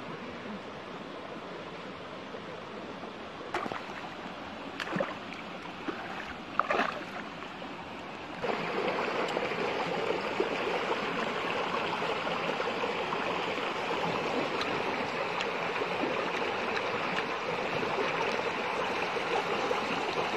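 Shallow stream running over rocks, with a few sharp knocks in the first several seconds. About eight seconds in, the rush of water steps up louder and stays steady.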